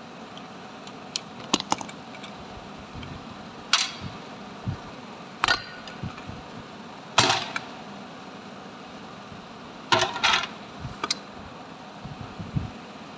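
Metal clinks and knocks as a 12 V starter motor's housing and a hand tool are handled and turned over on a workbench: about ten sharp strikes at irregular intervals over a steady background hum.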